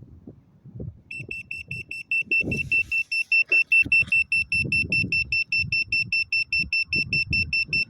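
Handheld digital carbon monoxide meter sounding its alarm: a rapid, steady run of high-pitched beeps, about five a second, starting about a second in. It is set off by carbon monoxide in the smoke from smouldering leaves, warning of a dangerous level. Irregular low rustling and knocking run underneath.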